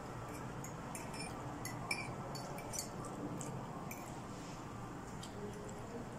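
Light, scattered clinks of cutlery against a plate, the sharpest about two seconds in, over a steady low room hum.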